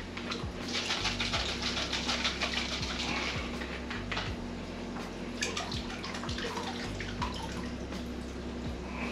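Liquid sloshing and splashing in two spells: a small plastic bottle of bacteria starter being shaken and its contents dosed into the water of a saltwater aquarium.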